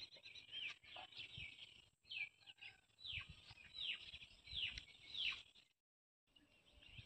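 Bird chirping: a quick run of short calls, each sliding downward in pitch, with a few soft low knocks among them. The sound drops out completely for about half a second near the end.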